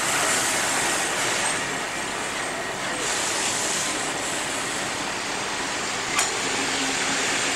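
Vintage red passenger carriages of a steam-hauled train rolling past on the rails, a steady rush of wheel-and-rail noise, with one sharp knock about six seconds in.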